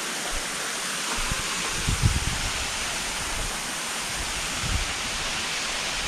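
Steady rush of waterfall and stream water, an even hiss, with a few low bumps about a second in and again near the end.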